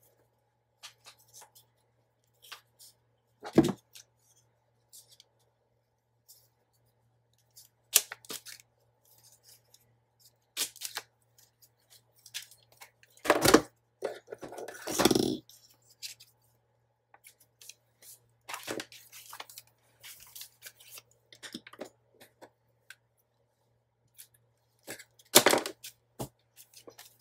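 Paper-crafting handling noises: scattered scissor snips and paper rustling, with a few louder sharp clatters and a longer rustle of paper about halfway through, over a faint steady hum.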